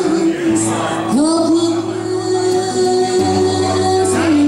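A woman singing long held notes, sliding up into each one, with acoustic guitar accompaniment.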